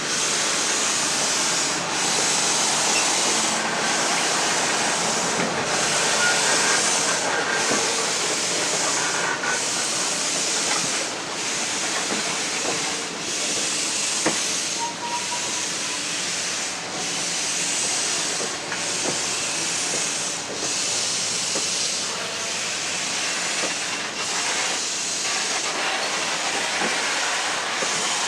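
Steam hissing from a 2-6-6-2 Mallet steam locomotive, Baldwin-built C&O 1309. The hiss is steady and strong, with a brief regular dip a little more often than once a second.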